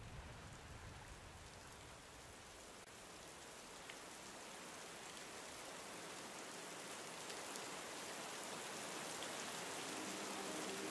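Steady rain falling, an even hiss that slowly grows louder. A music track begins faintly near the end.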